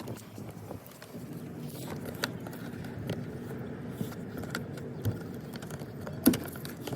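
Scattered small clicks and rattles of car door-handle parts being handled, over a low steady hum; the loudest click comes near the end.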